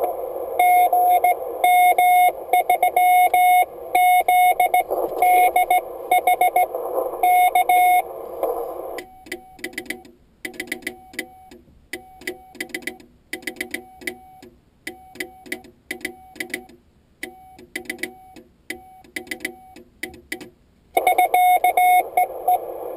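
Morse code on the audio of an Icom IC-701 transceiver: a keyed tone of about 700 Hz sounding in dots and dashes. For the first eight seconds or so the tone is loud over band hiss. It then becomes quieter and cleaner, with a click on each element, and the loud, hissy signal returns near the end.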